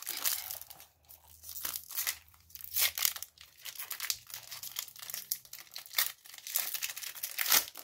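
Foil wrapper of a Pokémon trading-card booster pack crinkling and tearing as it is picked open by hand, in irregular crackles.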